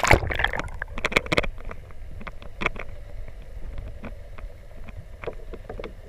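Sea water around a submerged camera: a muffled low rumble with a loud knock at the start, a quick run of clicks about a second in, and scattered ticks after that.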